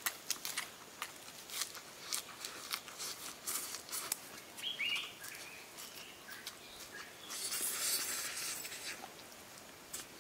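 Close-up eating by hand: wet lip-smacking and chewing clicks, with a longer sucking hiss about three quarters of the way through as fingers are sucked clean. A brief bird chirp sounds about halfway.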